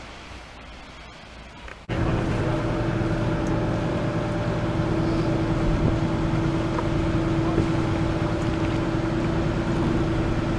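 Faint wind and a few light clicks, then about two seconds in the sound jumps to a small open passenger boat's engine running steadily under way, with a steady hum over a low drone.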